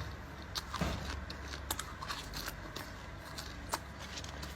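Crunching and crackling of a large insect being chewed: scattered sharp clicks at irregular intervals over a low steady hum.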